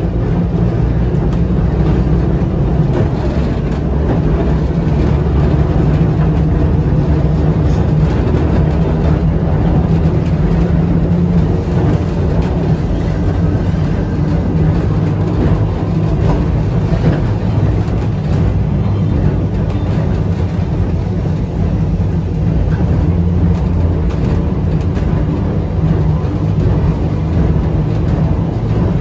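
Vintage A-type electric tram heard from inside the car while running: a steady, loud low rumble of steel wheels on the rails and the traction motors.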